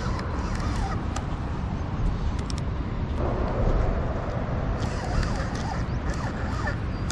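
Spinning reel being wound in two short spells while playing a hooked carp, over a steady low rumble.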